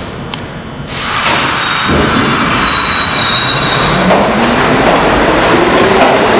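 R68 subway train pulling out of an underground station. About a second in its noise comes up sharply, then a whine rises steadily in pitch as the train picks up speed, with a brief high-pitched squeal partway through.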